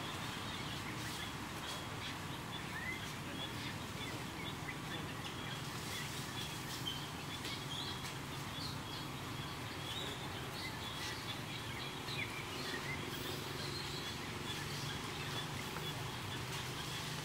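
Outdoor forest ambience: scattered short bird chirps over a steady high-pitched hum and a low background rumble.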